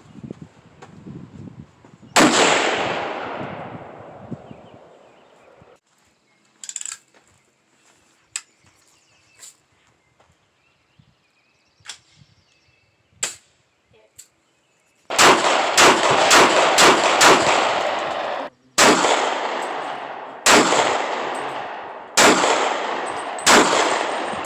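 Firearm shots at an outdoor shooting range, each with a long echoing tail. One loud shot comes about two seconds in, a few faint single shots follow, then a quick string of about six shots, then four more spaced about a second and a half apart.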